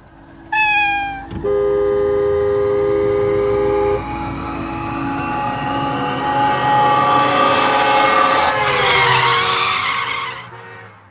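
A kitten meows once with a falling pitch, then a car horn sounds one steady two-note blast for about two and a half seconds. A car engine rises in pitch as it approaches and ends in a loud screech of skidding tyres with a falling pitch that dies away.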